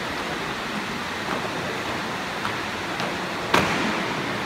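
Steady hiss of hall noise with a few faint taps, then about three and a half seconds in one sharp, loud stamp with a short echo: a marching squad bringing their boots down together as they step into an at-ease stance.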